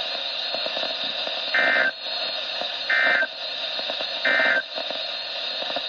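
NOAA Weather Radio SAME end-of-message data bursts: three short, identical digital chirps about 1.3 seconds apart over steady radio hiss, signalling the end of the weekly test message.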